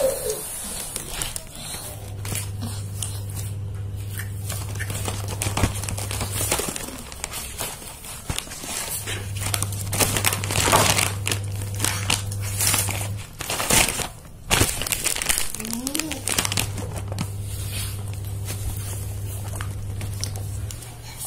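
Plastic snack-chip packets crinkling and rustling in irregular bursts as they are handled. A low hum comes and goes in three stretches of a few seconds each.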